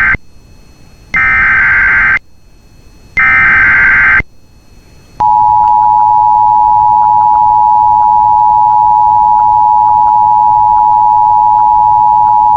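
Emergency Alert System tones. Two more of the SAME digital header's data bursts come in, each about a second long and a second apart. From about five seconds in, the steady two-tone attention signal follows, which announces that an emergency alert message is about to be read.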